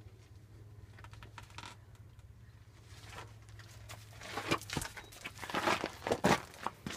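Footsteps crunching and scuffing on gravel, louder over the second half, over a steady low hum.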